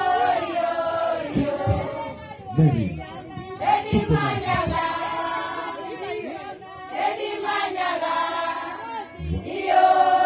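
A group of women singing together in chorus, holding long notes.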